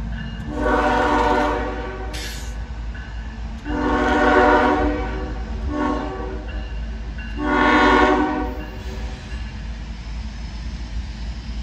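CSX ES44AH locomotive's Nathan K5HL five-chime horn sounding the grade-crossing signal: long, long, short, long. A steady low rumble from the approaching locomotive runs underneath.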